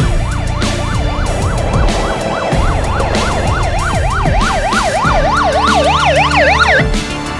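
Police car siren in a rapid yelp, sweeping up and down about three times a second, over background music with a steady beat. A second, higher-pitched siren joins near the end, and both cut off suddenly about a second before the end.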